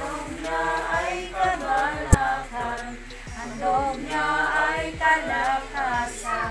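A small group of men and women singing a hymn together without instruments. A single sharp knock comes about two seconds in.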